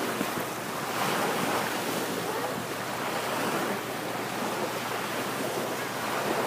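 Sea surf washing onto a sandy beach: a steady rush of waves that swells and eases every second or two.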